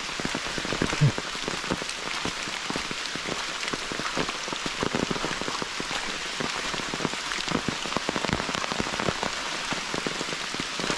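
Steady rain falling, with many separate drops striking a surface close by, and a brief low thump about a second in.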